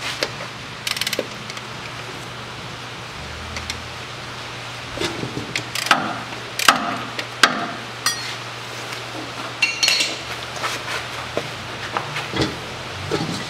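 Ratchet wrench loosening a gearbox drain plug: scattered metallic clicks and clinks of the tool against the plug and casing, with a few short runs of ratchet clicking, over a steady low hum.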